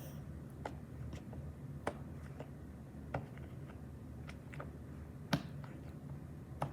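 Fidget toys being handled, giving scattered, irregular small clicks, with one louder click about five seconds in, over a steady low hum.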